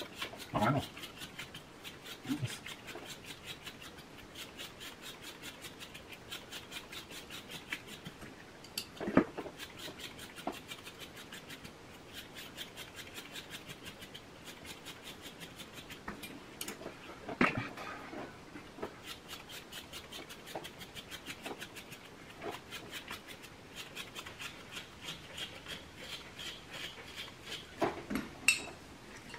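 A toothed grooming tool dragged through a West Highland White Terrier's wiry coat in quick, regular strokes while the coat is being hand-stripped. A few louder short sounds stand out about 9, 17 and 28 seconds in.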